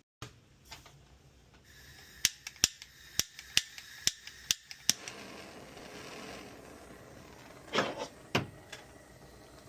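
Plastic toy mechanism of a restored Jet Ball toy clicking sharply, about eight clicks over three seconds, then two heavier knocks a little over half a second apart near the end, over a faint steady high tone.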